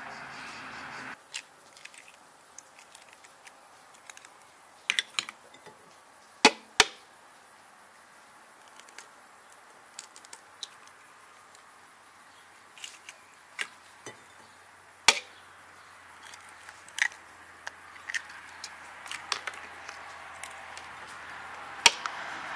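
Eggs being cracked open one after another over a steel pot, each giving a sharp crack or tap, sometimes two in quick succession, every second or few.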